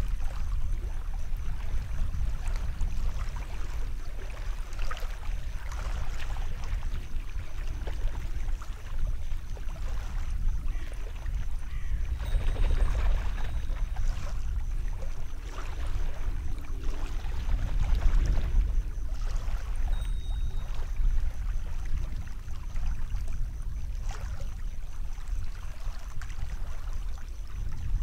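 Shallow water sloshing and splashing irregularly as a person wades and handles a fish net in it, heaviest around the middle. A steady low rumble runs underneath.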